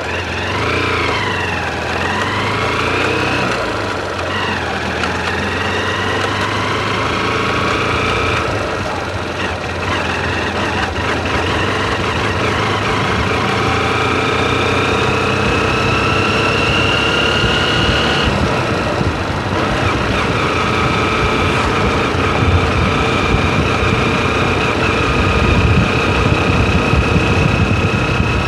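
Motorcycle engine running as the bike pulls away and rides along a road, its pitch climbing steadily and dropping back twice at gear changes, about eight and eighteen seconds in.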